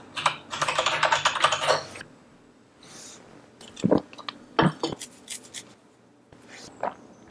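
Rapid typing on a split ergonomic computer keyboard for about two seconds, then a few scattered key clicks.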